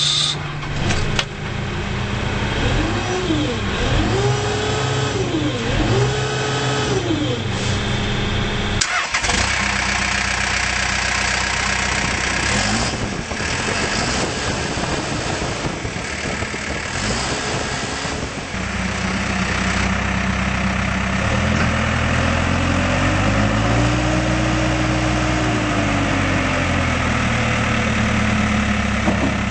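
Diesel engine of a Case 590SM Series 2 backhoe loader running and being revved up and down several times in quick succession, with a sharp click about a second in and a sudden break about nine seconds in. It then runs steadily and is revved up once more and let back down near the end.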